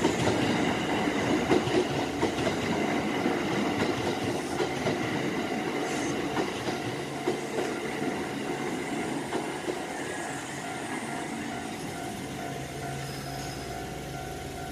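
Electric commuter train running past and pulling away, its wheels clattering over the rails with a faint high squeal, fading steadily as it recedes.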